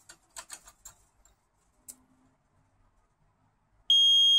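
Nest Protect smoke alarm sounding one loud, steady high-pitched beep that starts near the end, the first of a repeating series, in what the owner takes for a false alarm. A few faint ticks and clicks come in the first second before it.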